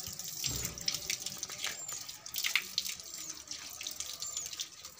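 Water running from an outdoor tap and splashing irregularly onto a dog being bathed and the concrete beneath it.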